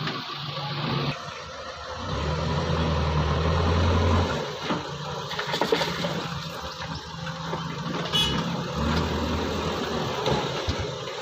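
Heavy diesel engine running, growing louder about two seconds in and easing back about four seconds in, with a few short knocks.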